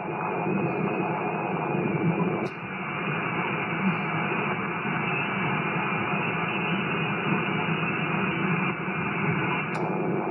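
Icom IC-7851 transceiver's speaker receiving the 40 m band in LSB: a steady rush of band noise and interference (QRM), cut off above about 3 kHz by the receive filter, with faint steady tones in it. Two short clicks, about two and a half seconds in and near the end, come as the receiver is switched between its two antennas, and the noise dips for a moment at the first.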